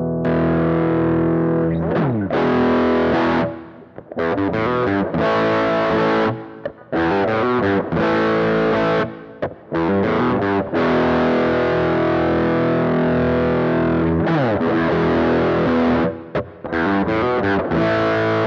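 Electric guitar played through a Ruach AF1 Woody Fuzz analog fuzz pedal: fuzzy distorted chords and riffs with short stops between phrases. There are two slides down in pitch, one about two seconds in and another near the fourteen-second mark.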